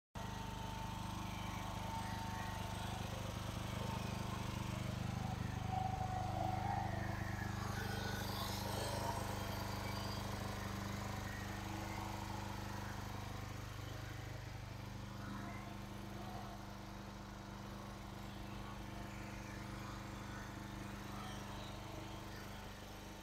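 An engine running steadily at idle, a low even hum, with a brief rustle about eight seconds in.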